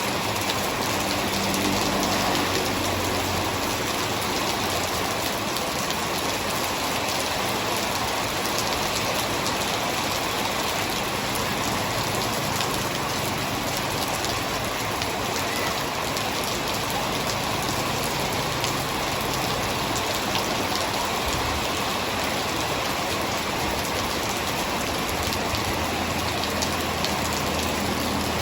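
Heavy rain falling steadily, a dense hiss of drops hitting a surface with fine individual splashes throughout.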